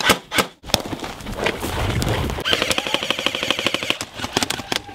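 Airsoft guns firing: a few single shots, then rapid full-auto bursts of sharp clicking shots running almost without a break from about a second in.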